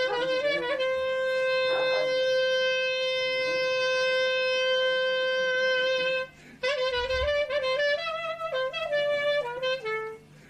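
Solo clarinet playing a taksim in Harput style: quick ornamented runs, then one long held note of about five seconds, a short breath, and more quick ornamented phrases settling on a lower note near the end.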